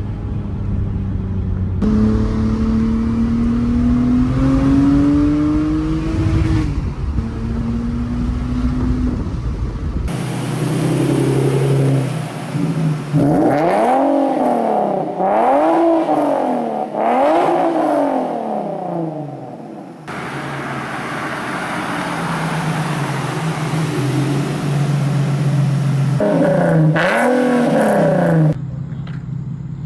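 Car engines in several back-to-back clips with abrupt cuts between them. One engine accelerates, its pitch climbing and then dropping back partway through. Another is revved up and down repeatedly, about once a second.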